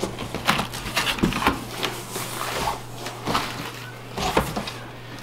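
Cardboard packing of a new toilet's box being handled: a scattered run of rustles, scrapes and sharp knocks, over a steady low hum.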